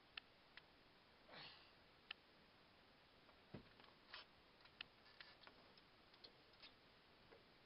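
Near silence: faint background hiss with a dozen or so small, sharp clicks at irregular intervals.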